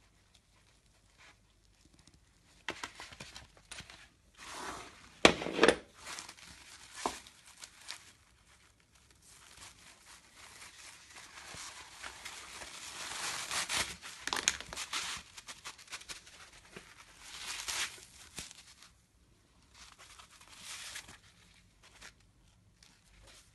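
Hands handling a skate helmet and plastic-shelled knee and elbow pads with fabric straps: irregular rustling, crinkling and scraping with scattered light clicks and knocks, loudest about five seconds in and again around thirteen to fifteen seconds in.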